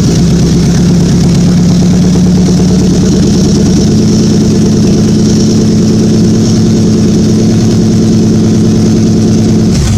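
Car engine running steadily and loud just after starting up, the pitch creeping up slightly a couple of seconds in. It runs now that the replaced injector rail delivers fuel through the injectors, which had not been spraying before.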